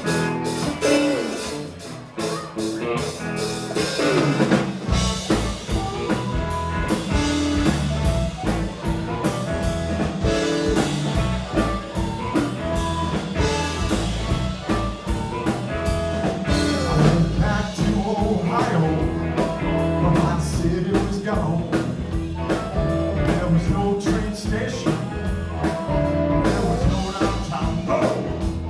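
Live rock band playing with electric guitar; the full band with bass and drums comes in about five seconds in and plays on steadily.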